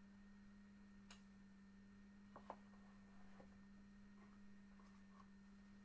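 Near silence: room tone with a steady low hum and a few faint small clicks, the loudest about two and a half seconds in.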